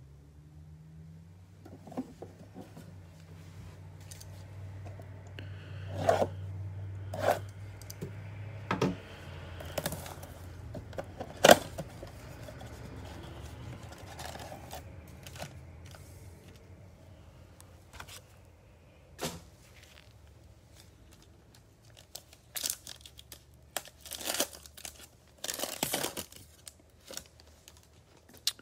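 A trading-card pack wrapper being torn open and crinkled by hand, in scattered sharp crackles and rips, with a flurry of them near the end as the cards come out.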